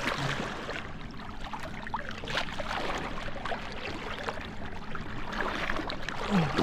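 Water splashing and sloshing at the side of an inflatable skiff, with many small irregular splashes, as a landed tarpon is held in the water for release.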